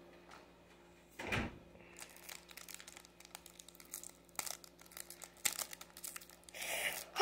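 Faint crinkling and rustling of a Pokémon trading-card booster pack's foil wrapper and cards being handled, with scattered small ticks and a soft low sound about a second in.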